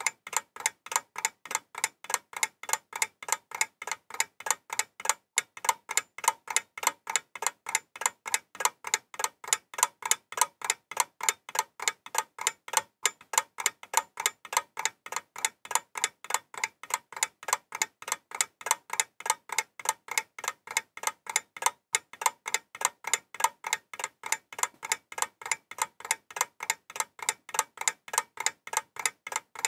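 Clock ticking steadily, about four ticks a second, the ticks alternating louder and softer.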